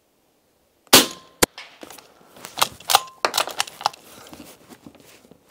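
De Lisle carbine, a fully suppressed .45 ACP rifle on an SMLE bolt action, fires one quiet shot about a second in. About half a second later comes a sharp crack of the bullet striking downrange. Then a run of metallic clacks follows as the bolt is worked.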